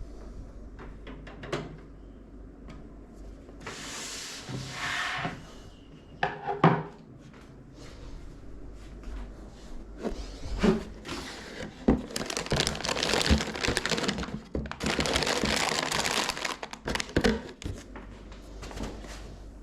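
Hands working on PC parts and the case, making scattered clicks and knocks with two longer stretches of rustling and scraping, the longest near the middle and second half.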